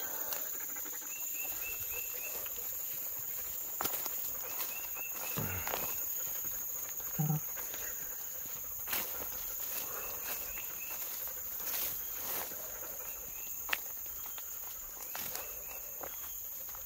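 Footsteps crunching and rustling through leaf litter and brush, with a steady high insect drone and a repeated series of quick insect chirps, in summer woodland. A couple of short low sounds occur about five and seven seconds in.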